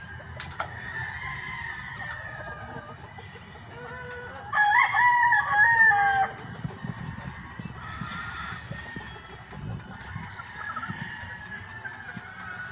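Rooster crowing once, about five seconds in, for about a second and a half. Hens cluck softly around it.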